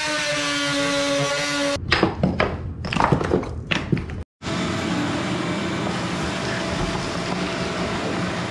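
Cordless oscillating multi-tool running at a steady pitch, then cutting into wood with irregular rasping and knocking for a couple of seconds. After a short break about four seconds in, a vacuum runs steadily, sucking up the sawdust through its hose.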